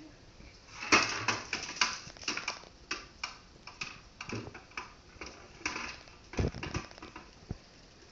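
Plastic stylus tapping and scratching on a small plastic toy drawing board, with the board knocked about as it is handled: irregular clicks and short scratchy strokes, starting about a second in.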